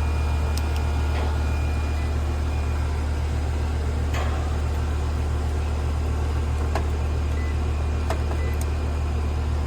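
Air-conditioning condensing unit running, its compressor and condenser fan giving a steady low hum, with a few light clicks over it. The unit is running again on a newly replaced capacitor.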